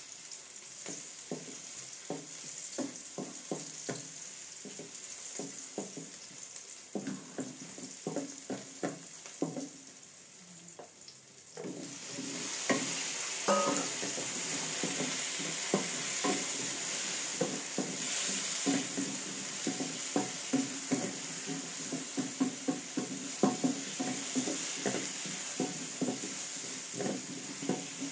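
A wooden spatula scrapes and knocks around a nonstick wok as minced aromatics sauté quietly in oil. About twelve seconds in, cubed squash goes into the hot pan and the sizzling suddenly turns much louder, with the stirring strokes continuing.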